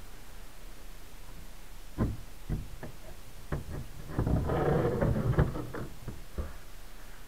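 A Giyo GF04 floor pump knocking and rattling against the velomobile's tail shell as it is unclipped from its brace and pulled out. First a few separate knocks, then a denser clatter around the middle, and a last knock near the end.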